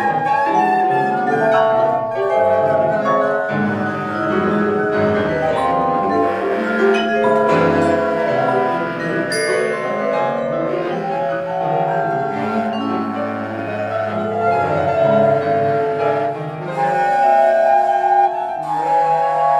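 Contemporary chamber music played live by bass flute, baritone saxophone, percussion and piano: many overlapping held notes with mallet-struck notes, and a sharp, bright strike about halfway through.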